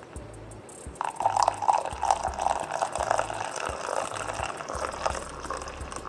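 Coffee mixture poured in a thin stream into a mug of frothed milk, splashing and bubbling as it fills. The pour starts about a second in.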